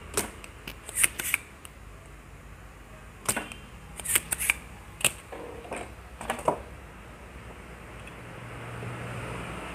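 Spring-loaded desoldering pump (solder sucker) being cocked and fired against a circuit board, drawing solder off a potentiometer's pins. It makes a series of sharp clicks and snaps in irregular clusters, about a dozen over the first six and a half seconds, and then stops.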